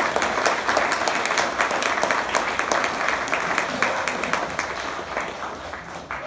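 Audience applauding: dense, steady clapping from many hands that gradually dies down over the last couple of seconds.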